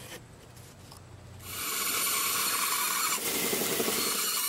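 Faint scratching of a pencil tracing a template onto a board. About one and a half seconds in, a small bandsaw comes in loud, sawing steadily through the wood.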